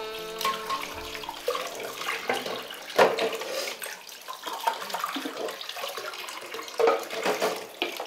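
Water running from a tap into a kitchen sink while plates and cups are washed, clattering against one another, with the loudest clank about three seconds in. A held string-music note fades out in the first second or so.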